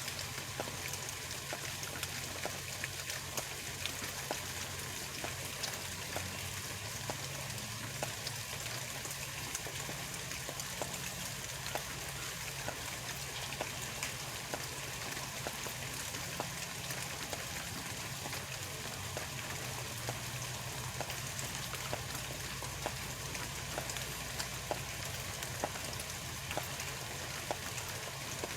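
Steady patter of many small irregular ticks, like rain falling on a surface, over a steady low hum.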